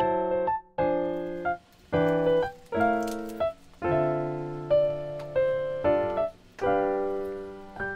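Background music played on a piano-like keyboard: chords struck one after another, each fading away, with short pauses between phrases.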